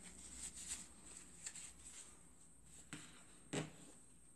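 Quiet bench-work handling noises: faint rustling and light ticks, a sharp click about three seconds in, and a louder knock about half a second later.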